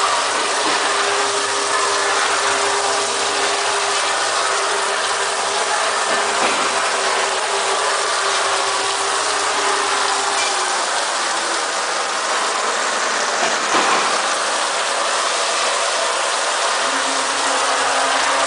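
Mini rotary 30-cup bottle washing machine running: a steady mechanical clatter of its rotating mechanism with a faint hum and one brief knock about fourteen seconds in.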